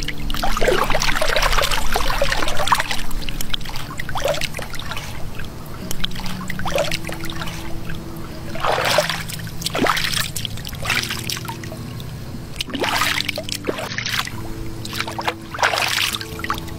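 Lake water splashing and trickling as hands stir and scoop through it, in several separate bursts. The longest and loudest comes in the first few seconds. Low steady tones run underneath.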